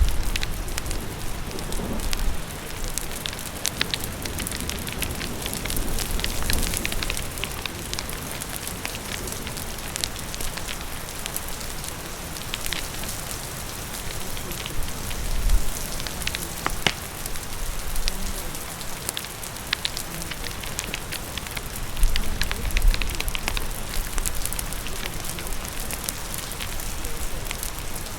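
Steady rain hissing together with a crackling fire, scattered sharp pops over the rain, with a few louder low thuds.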